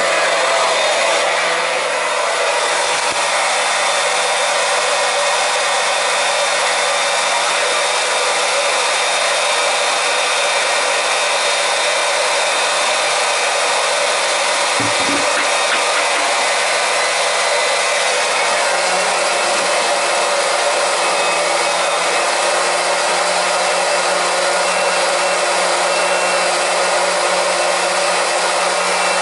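Small electric transfer pump running steadily, pushing propylene glycol antifreeze through the boiler's heating zones and back into a bucket to purge air from the system.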